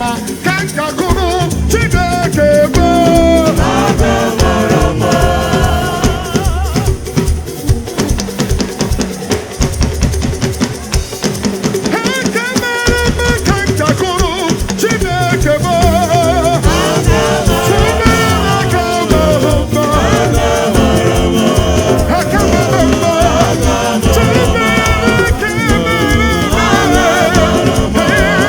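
Praise music: voices singing a melody over steady, lively drums and percussion. The low drum sound drops out briefly about halfway through.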